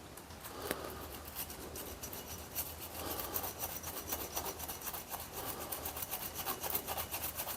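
Steel screwdriver tip being rubbed back and forth on 180-grit sandpaper in rapid rasping strokes that get busier about a second in. This is the tip being dressed and its burrs ground off.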